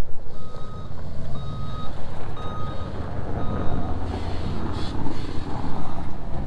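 Backup alarm on snow-removal equipment beeping about once a second, one steady tone, as the machine reverses, over the low steady running of a loader's engine. The beeps drop out briefly about four seconds in.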